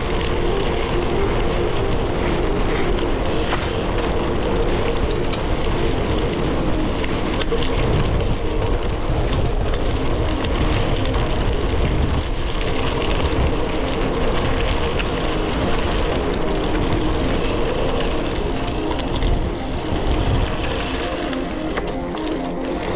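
Gravel bike on 38 mm GravelKing SS tyres rolling over a dirt and gravel forest trail: a steady, loud rumble of tyres and wind noise on the camera microphone, with a wavering hum underneath.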